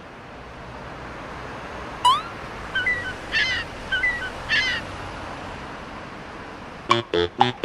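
Seagull calls: a rising cry, then a few short cries over a steady outdoor hiss. Near the end a quick run of short, regular pulses begins.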